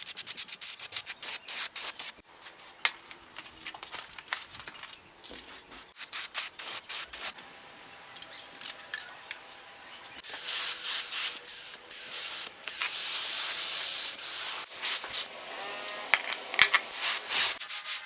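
Quick back-and-forth rubbing strokes, like hand sanding or scrubbing a motorcycle part, then, about ten seconds in, long bursts of hissing spray with a few short breaks.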